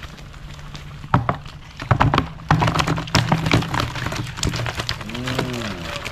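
Live catfish poured from a sack into a plastic basin: a rush of wet slaps, flopping and knocks against the plastic. It starts about a second in and is loudest between two and four seconds.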